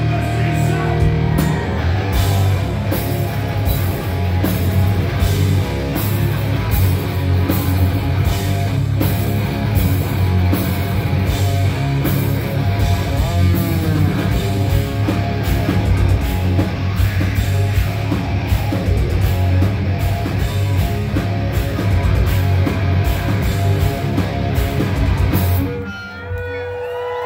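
Live heavy rock band playing loud: distorted electric guitars, bass and drums. Near the end the music stops abruptly, leaving a single held tone ringing on.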